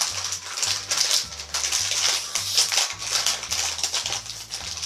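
Thick plastic snack bag crinkling and crackling as it is pulled and squeezed open by hand, with a low bass line of background music underneath.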